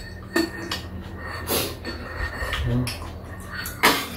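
People eating at a low table: breathing and sniffing noises while eating, with several short sharp clicks of spoons and chopsticks against bowls, the loudest near the end.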